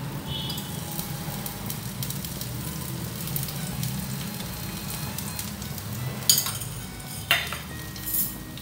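Tapioca adai batter sizzling steadily on a hot iron tawa as oil is spooned around it. Three sharp metal clinks come in the second half.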